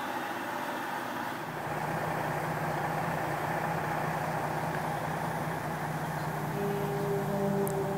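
An unidentified steady drone made of several held tones. A deeper tone comes in about a second and a half in, and another tone swells near the end.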